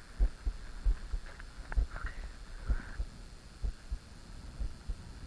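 Irregular low thumps and rumble on the microphone, about two or three a second, over a faint hiss.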